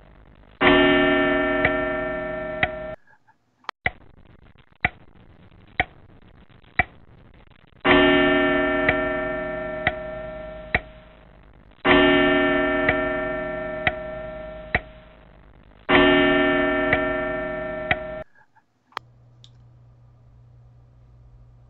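A clock ticking about once a second, with a deep bell struck four times, each stroke ringing for two to three seconds and then cut off. Near the end this gives way to quiet room tone with a low steady hum.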